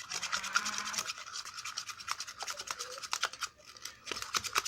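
Glue and slime activator being stirred in a container: quick, continuous scraping strokes with a brief pause about three and a half seconds in.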